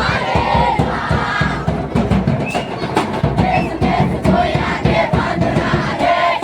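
A group of children singing and shouting together over quick, steady drum beats: a dance song.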